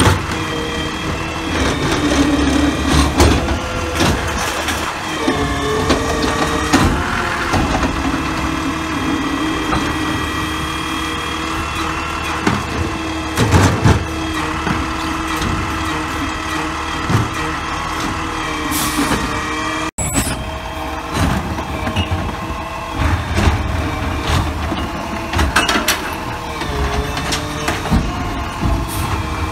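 Automated side-loader garbage truck's diesel engine running with a steady hydraulic whine that shifts in pitch as the arm grips, lifts and empties a trash cart, with knocks and clanks from the cart and arm. Short hisses of air break in a few times, and near the end the truck pulls away.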